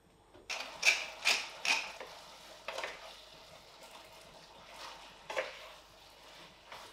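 Wooden spoon stirring and scraping beef and onions in a nonstick frying pan, with three sharp scrapes in quick succession about a second in and a few softer ones later, over faint sizzling.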